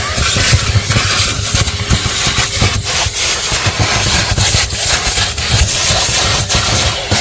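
Wet-and-dry vacuum cleaner running, its nozzle rubbing and knocking against surfaces in quick, irregular strokes.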